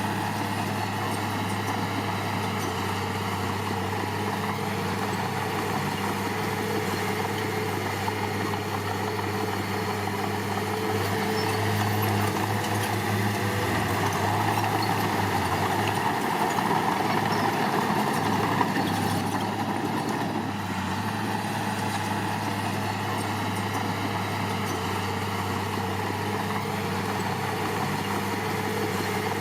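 Diesel engine of heavy earthmoving machinery running steadily, working harder and louder for several seconds in the middle, then settling back.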